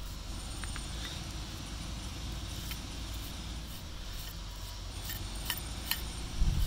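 Small brass wire brush scrubbing corrosion off the copper windings of a brushless fan motor's stator: faint scratching with a few sharp clicks, over a steady low rumble.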